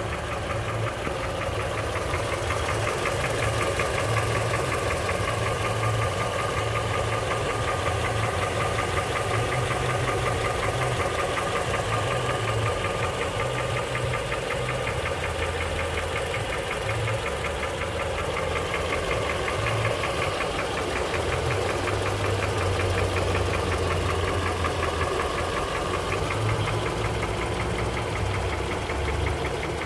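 Honda K24Z1 2.4-litre four-cylinder engine running with a steady, rapid diesel-like knock. The knock's cause is undiagnosed: mechanics have variously blamed the pistons, valves, spun bearings, spark plugs, injectors or timing chain.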